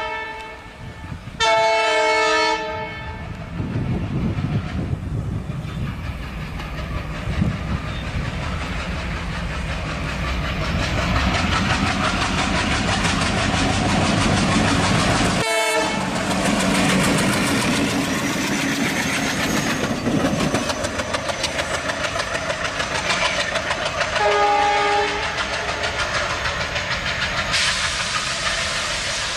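Twin ALCO diesel locomotives running under heavy load, their engines loud and steady with wheels clattering over the rail joints. A horn sounds about a second and a half in and again about 24 seconds in, and the sound breaks off for an instant near the middle.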